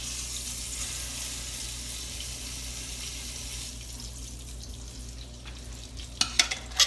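Hot butter gravy from the skillet hissing as it is poured into the crock pot. The hiss dies down about two-thirds of the way through, then a few sharp clicks and knocks come near the end.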